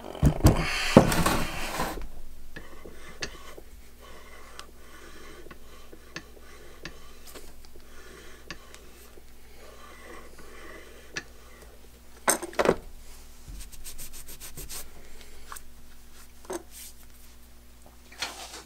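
Cast-iron body of a super spacer scraped and set down on a wooden workbench: a loud scraping clatter in the first two seconds, then quieter metal handling with scattered knocks and a quick run of clicks.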